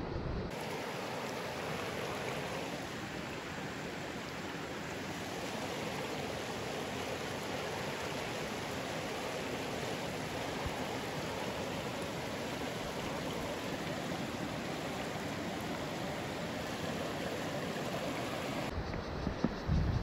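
Steady rushing of a shallow, rocky creek flowing over stones. Near the end this gives way to wind buffeting the microphone with a low rumble.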